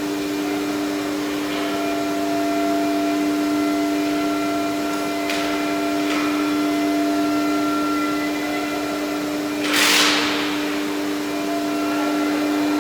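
Nesting CNC router running with a steady whine, joined by fainter higher tones that come and go, and a short loud hiss about ten seconds in.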